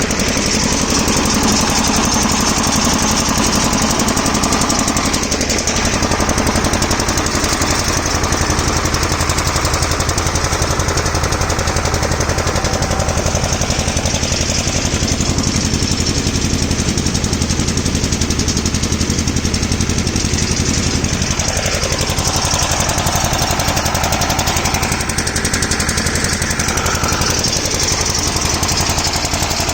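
Engine of a harvesting machine working a finger millet (ragi) crop, running steadily and loudly with a rapid, even beat.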